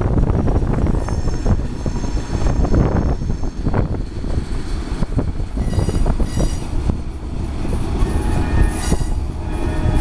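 CSX freight train of tank cars and boxcars rolling past on a curve, a steady low rumble of wheels on rail joined by high-pitched wheel squeal. The squeal comes in about a second in, fades, and returns more strongly in the second half.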